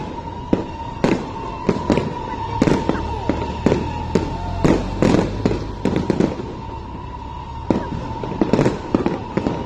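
Fireworks display: a rapid, uneven string of bangs and pops, several each second, easing off for a second or so past the middle before picking up again. A steady high tone runs underneath.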